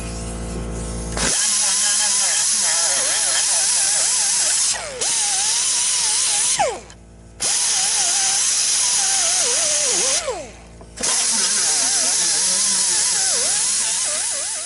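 Pneumatic grinder grinding rust off a Jeep Wrangler YJ's steel floor pan to reach clean metal for welding, a hissing whine that wavers in pitch as it bites into the metal. It starts about a second in, runs in three stretches with short stops at about six and a half and about ten seconds in, then winds down at the end.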